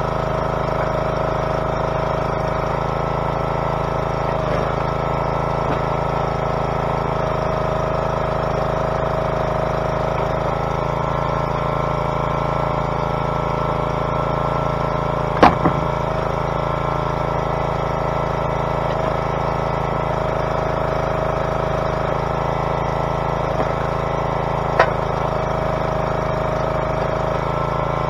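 A log splitter's engine running steadily, with two sharp cracks, about halfway through and near the end.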